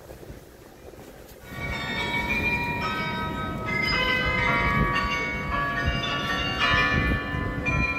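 The bells of the Glockenspiel on Munich's Neues Rathaus tower chiming a tune. Notes are struck one after another and ring on over each other, starting about a second and a half in, over a low hum of crowd and street noise.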